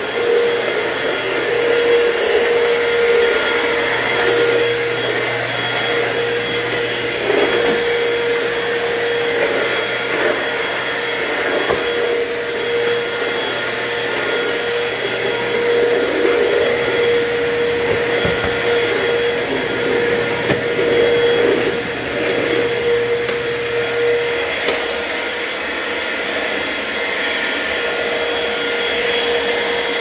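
Hoover Total Home Pet upright vacuum running steadily over carpet, with a constant motor whine over the suction noise. Cat litter is being picked up, with a few scattered clicks.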